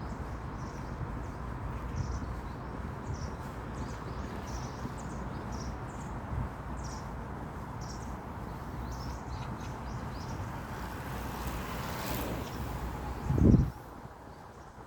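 Small birds chirping in short repeated calls over a steady low outdoor rumble, with one brief loud low thump near the end.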